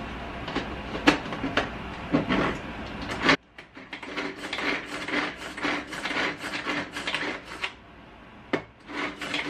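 Hand-pulled kitchen chopper with a white lidded bowl, worked in quick repeated pulls that give a run of rasping, whirring strokes as its blades chop garlic and onion. About a third of the way in the sound cuts off and starts again.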